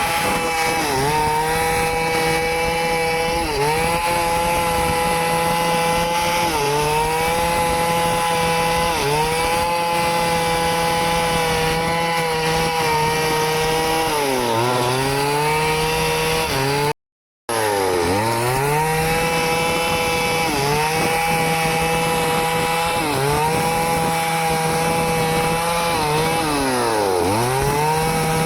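Stihl two-stroke chainsaw running at high revs while cutting wood. Every two or three seconds the engine pitch dips as it loads in the cut, then climbs back. The sound cuts out for about half a second roughly two-thirds of the way through.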